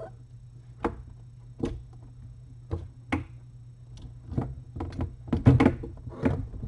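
A mother cat and kitten scuffling and pouncing on bedding in a pen: irregular thumps and knocks, a few at first, then a quick cluster about five and a half seconds in, the loudest of them, over a steady low hum.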